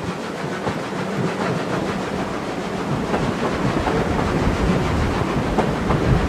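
Railway train running on the track, a steady rumble with irregular clicks of the wheels, the low rumble growing heavier and a little louder over the last few seconds.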